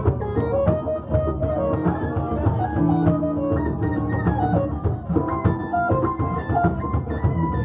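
A live band playing instrumental music at a jam session: a quick melody moving note by note over a steady rhythmic accompaniment.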